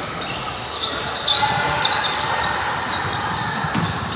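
Basketball being dribbled on a gym court amid the chatter of players and spectators, with short high sneaker squeaks now and then.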